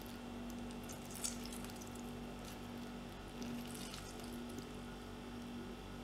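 Faint squish and drips of half a lemon squeezed by hand over sweet corn kernels in a steel bowl, with a few soft wet sounds about a second, two and a half seconds and four seconds in, over a steady low hum.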